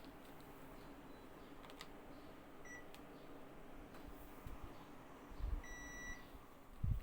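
Panasonic mini split air conditioner's indoor unit beeping, as it does to acknowledge a remote-control command: one short beep, then a longer beep about three seconds later, over a steady low hum. A couple of dull low thumps come near the end.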